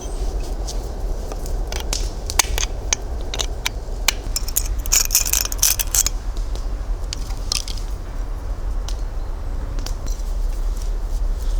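Scattered clicks, scrapes and crunching of hands at work on small materials, with a denser crunching burst about five seconds in, over a steady low rumble.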